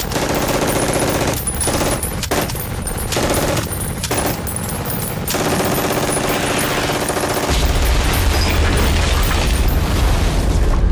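German MG42 machine gun firing very rapidly from a bunker in several bursts with short breaks, a fast buzzing rattle of shots, in a war film's battle soundtrack. A deep low rumble joins under the gunfire about two-thirds of the way in.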